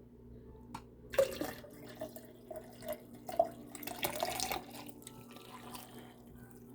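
Tea being poured into a cup: a splashing pour of about three and a half seconds that starts about a second in, then stops.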